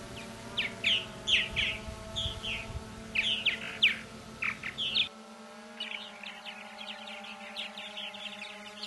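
Purple martins calling: a run of loud separate chirps over the first five seconds, then from about six seconds a rapid, dense chatter of many martins. A steady hum sits underneath.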